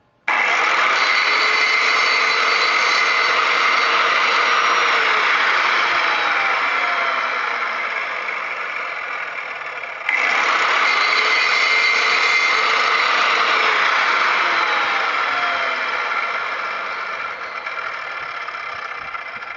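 Skil 3160 miter saw's motor spinning a 7-inch diamond blade through stone veneer, heard as two cuts. Each starts abruptly as a loud whine-and-grind, and the pitch falls slowly over the following seconds.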